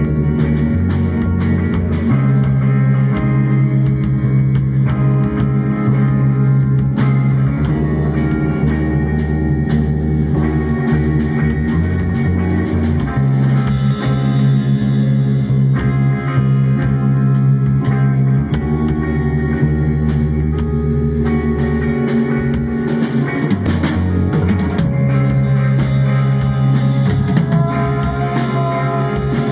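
Rock jam with drums and guitar played over a sustained low drone, the held low notes shifting every few seconds.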